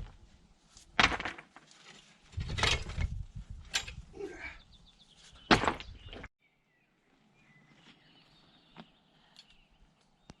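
Several loud rustling thumps and scrapes over the first six seconds, then a sudden cut to a quiet stretch with faint bird chirps.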